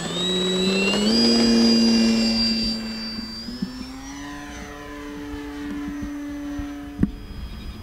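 Electric RC bush plane's motor and propeller running on a 6-cell battery, throttled up for a takeoff run: the whine steps up in pitch about a second in and is loudest just after, then holds a steady high note and grows fainter as the plane climbs away. A single sharp click near the end.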